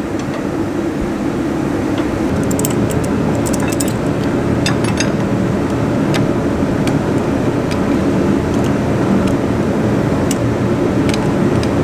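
A steady mechanical hum, with a few light metallic clinks of hand tools on the car's suspension hardware scattered through it.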